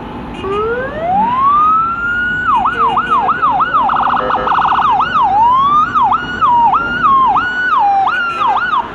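Electronic vehicle siren winding up from low to high, then switching through quick rising-and-falling sweeps and a very rapid warble. It stops just before the end.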